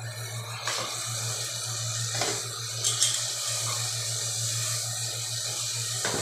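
Onion-tomato masala with water sizzling and bubbling steadily in a steel pot, with a few short knocks from the spatula and pot, and a steady low hum underneath.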